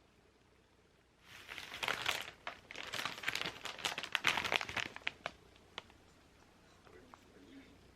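Packaging crinkling as it is handled, for about four seconds, followed by a couple of light clicks.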